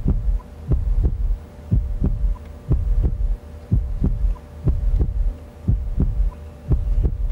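Quiz-show countdown timer sound effect: a low double thump about once a second over a steady hum, marking the 10 seconds allowed to buzz in and answer.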